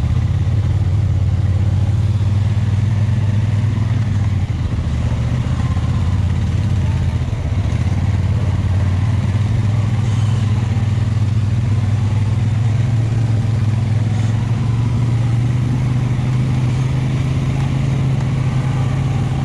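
ATV engine running steadily at low speed while crawling along a trail, a low, even drone.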